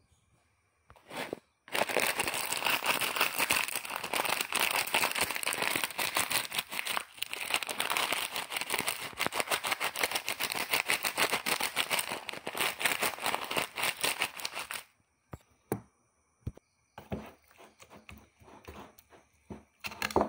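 Thin plastic snack packet of fried onions crinkling and rustling as it is handled and shaken out, for about thirteen seconds. After a short pause come a few light scattered taps and scrapes near the end.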